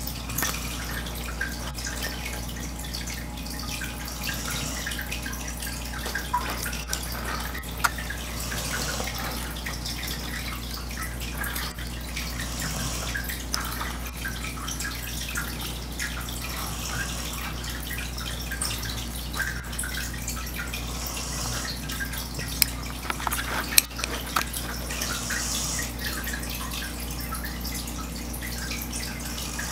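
Breathy snoring from a sleeper, a hissing breath recurring about every four seconds, six times, over a steady low hum and small scattered ticks.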